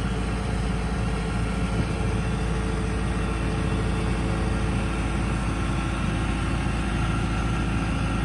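Kubota DC-70 combine harvester's diesel engine running steadily under load as the bogged tracked machine tries to crawl out of the mud.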